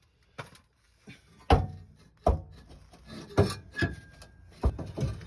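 Old exhaust pipe pieces knocking and clanking as they are pulled out: four sharp knocks about a second apart, with scraping rattles between and a brief metallic ring near the middle.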